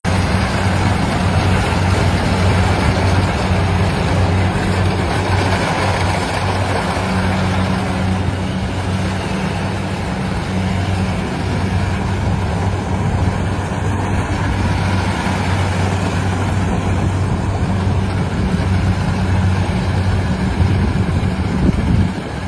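Rice harvesting machine running steadily: a deep, even engine drone under a broad mechanical rush. The drone cuts off and the level drops just before the end.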